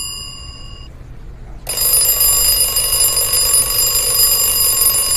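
An alarm ringing: a ringing that fades out within the first second, then starts again loudly about 1.7 seconds in and cuts off suddenly at the end.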